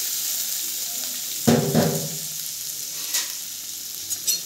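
Vegetables sizzling in hot oil in a stainless steel kadhai as leftover potato-and-cauliflower sabzi goes in, a steady hiss. There is a couple of louder knocks about a second and a half in, and a few light clinks near the end.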